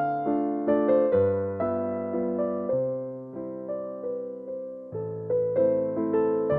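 Background music: a slow keyboard melody of struck notes that ring and fade, over low bass notes that change every second or two.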